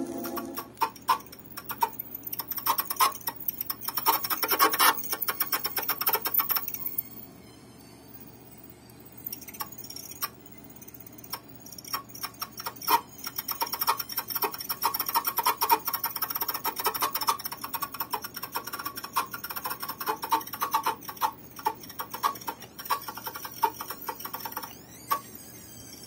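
A vinyl record playing through the Columbia GP-17 record player's built-in speaker: music thick with irregular clicks and ticks, swelling and falling in loudness a few times.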